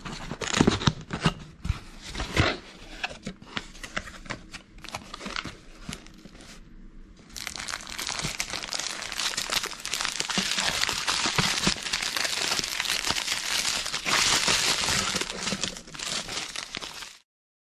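Cardboard box being opened, with scattered knocks and rustling of the flaps, then a long stretch of dense plastic crinkling as hands rummage through packed bags of diamond-painting drills. The crinkling cuts off suddenly near the end.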